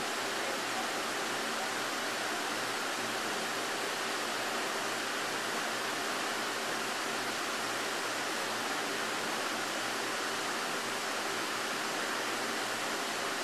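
Steady rushing of water flowing in a sea turtle rehabilitation tank, an even hiss that does not change.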